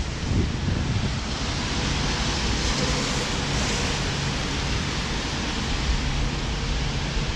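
Wind buffeting a GoPro's microphone, over a steady hiss of traffic on wet roads that swells about three seconds in.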